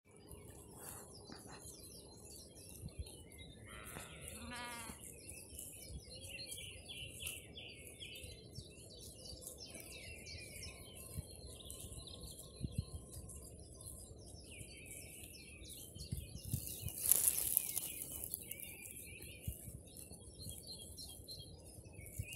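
Small birds chirping and singing over a quiet pasture, with a sheep bleating once about four seconds in and a brief, louder harsh sound around seventeen seconds in.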